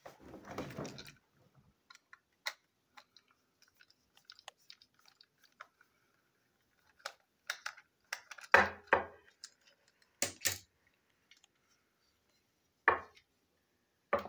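Plastic parts of a battery-powered toy train engine clicking and knocking as it is taken apart: the body shell is pulled off the chassis and the pieces are handled and set down on a hard shelf. A rustling burst in the first second, faint scattered ticks, then several louder sharp knocks in the second half.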